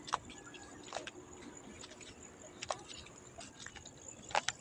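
A few faint, scattered sharp clicks and taps over a quiet background, with a faint steady high tone.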